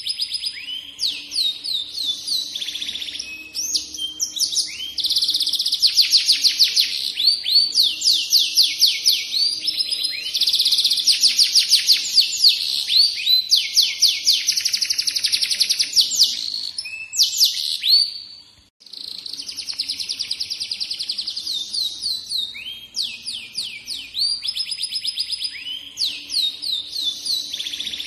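F1 canary singing a long, continuous song of rapid trills and rolled phrases, with one short break about two-thirds of the way through.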